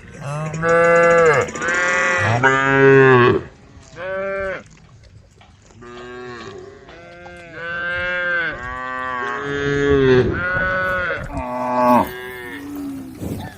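Several cows mooing again and again, their calls sometimes overlapping, each moo lasting about half a second to a second.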